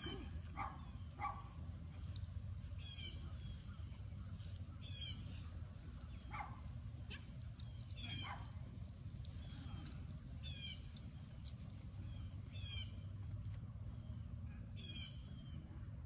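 A bird outdoors repeating a short, high phrase of quick falling notes about every two seconds, six times in all, over a steady low rumble.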